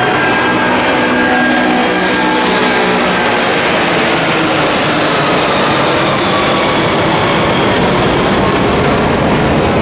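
Airbus A330 twin-jet airliner flying low past and climbing away: a loud, steady rush of jet engine noise.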